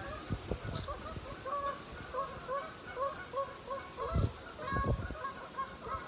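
Geese honking in a rapid, steady run of short calls, about three a second, with gusts of wind rumbling on the microphone, strongest near the end.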